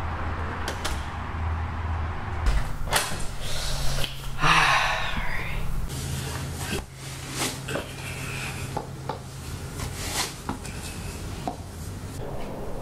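A front door closing with knocks and clicks, then a run of soft thumps and scuffs as sneakers are pulled off on carpet, over a low steady hum.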